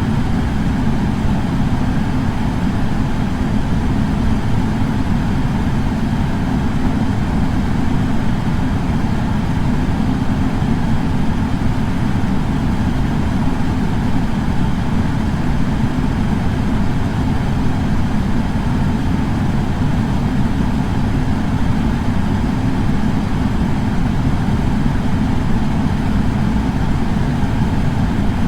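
Air purifier fan running steadily, a constant low whooshing hum with no change.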